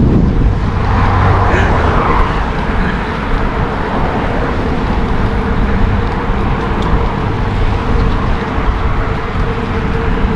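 Steady wind and road rumble on a moving bicycle's camera microphone while riding, with a faint steady tyre hum in the second half.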